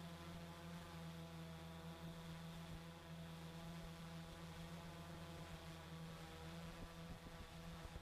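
Kong Copter X8 octocopter's motors and propellers humming steadily at a constant pitch, heard close from the drone's own camera. From about two seconds in, an irregular low rumble mixes in as the drone skims low over the water.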